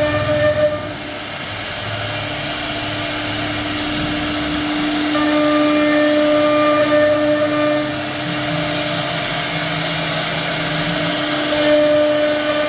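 CNC router spindle running with a steady whine while its bit cuts a design into a door panel, the cutting noise shifting in level as the tool moves.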